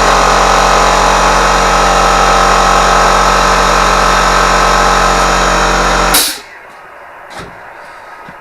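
A power tool's motor running loudly and steadily, with a low hum under it, then cutting off abruptly about six seconds in, leaving a quiet background with a faint knock.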